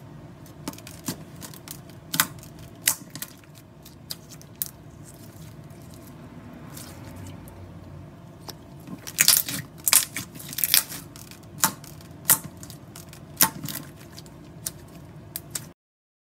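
Clear glitter slime with pearl beads being pressed and stretched by hand, giving scattered sharp clicks and pops over a steady low hum, thickest about nine to eleven seconds in. The sound cuts off suddenly just before the end.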